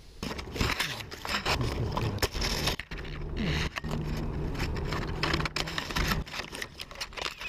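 Rustling and scraping of cloth and tree branches while a cat wrapped in a cloth bag is handled up in a tree. A low steady hum runs through the middle.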